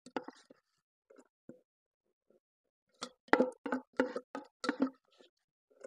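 A plastic spatula tapping and plopping chopped pepper and onions onto meat in a pot: a few faint taps, then a run of about eight quick soft knocks starting about three seconds in.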